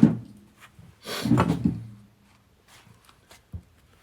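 Handling noises as parts of a Kurt milling vise are moved about: a knock at the start, a scraping clatter lasting about a second, then a couple of light clicks.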